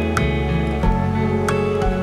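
Soft instrumental background music: held notes over a low bass line, with a light percussive tick twice.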